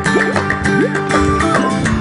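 Background music with plucked guitar over a steady beat.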